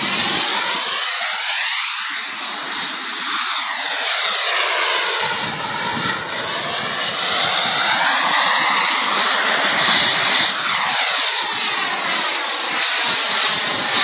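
A fighter jet's engine, loud and steady, as the jet flies past, with a whooshing, phasing tone that sweeps down and back up in pitch as it passes.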